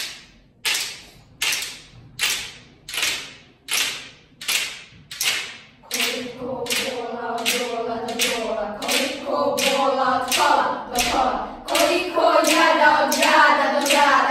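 A group of children keeping a steady beat of hand claps, a little over one a second; about six seconds in their voices join, singing together over the beat.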